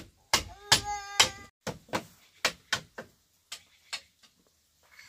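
A run of sharp knocks of blows striking something hard, about two a second and unevenly spaced, with a brief pitched cry near the start.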